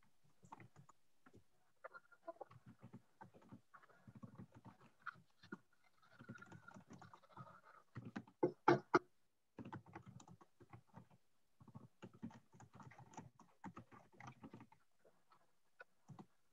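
Someone typing on a computer keyboard: a run of irregular keystrokes, with a few louder knocks a little past halfway.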